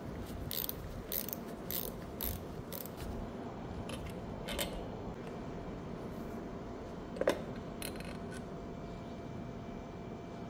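Metal tool clicks as a 5 mm Allen key is worked on the bolts of a motorcycle's handlebar switch housing. The clicks come about twice a second for the first three seconds, then a few scattered ones follow, the loudest about seven seconds in.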